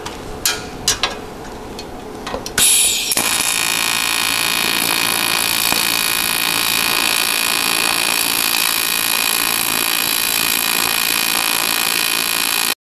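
TIG welding arc on an aluminium bumper: a few light clicks, then a crackling high-frequency start about two and a half seconds in, and a steady buzzing arc hiss as the weld is laid, stopping abruptly near the end.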